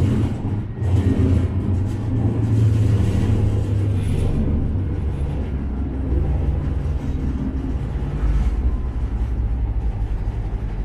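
Cobra low-floor tram heard from inside the passenger cabin while running: a steady low rumble with a hum from the running gear and drive.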